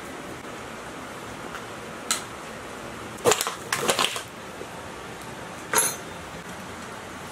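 Sharp metallic knocks and clanks of a rusty steel side cover being pried off a scrapped diesel engine block and set down among tools on a workbench. There is one knock about two seconds in, a quick cluster of clanks around three to four seconds, and another clank near six seconds, over a steady low hiss.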